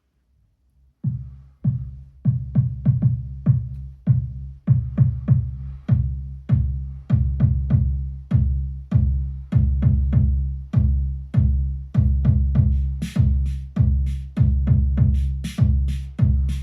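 Arturia DrumBrute Impact analog drum machine playing a busy rhythmic pattern of deep, ringing drum hits, starting about a second in. Bright, crisp high hits like hi-hats join about three-quarters of the way through.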